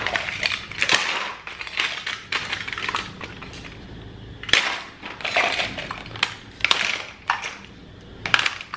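Hard plastic toys clattering and rattling against each other as a hand rummages through them, in a run of irregular bursts, loudest about halfway through and near the end.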